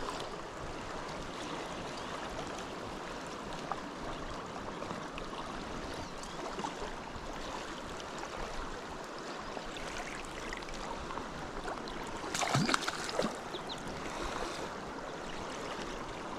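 River water flowing steadily, an even rushing hiss, with a short louder knock or splash about twelve seconds in.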